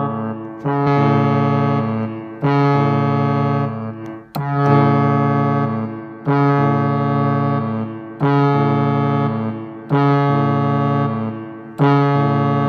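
Electronic keyboard playing a chord with a brass-like tone, tuned to imitate a cruise ship's horn, with vibrato. It is sounded in short repeated blasts, each held a little under two seconds, seven of them.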